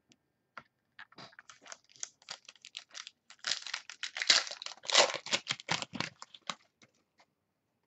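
Foil wrapper of a trading-card pack being torn open and crinkled in the hands: a quick run of crackles, loudest and densest in the middle, then thinning out.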